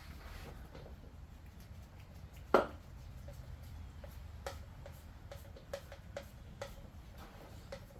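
Hand work with tools and small metal parts: one sharp knock about two and a half seconds in, then scattered light clicks and taps.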